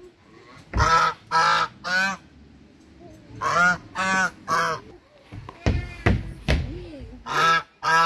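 Chinese geese honking loudly in quick runs of three, each honk a short, harsh, pitched call. A run comes about a second in and another about three and a half seconds in, with two more honks near the end.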